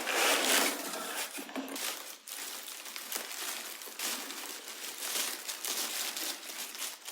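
Packaging wrapped around a 3D-printed egg being pulled off by hand, crinkling and rustling in quick irregular bursts, loudest in the first second.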